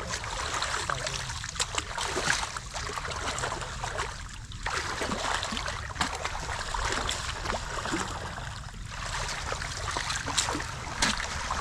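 Shallow water splashing and trickling, with many small irregular splashes and clicks.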